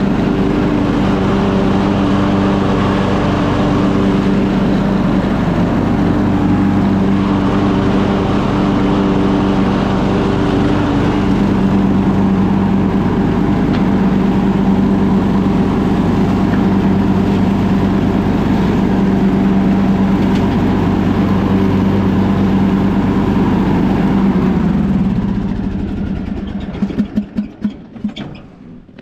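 Craftsman LT2000 riding mower engine running steadily with the mowing blades engaged. Near the end it starves of fuel because the fuel valve was left shut: it slows, dies and gives a few sputtering pops as it stops.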